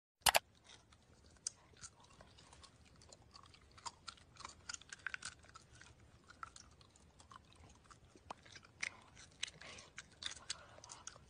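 Chimpanzee chewing gum with its mouth open: faint, irregular smacks and clicks of lips and tongue, several a second. A sharp click sounds just at the start.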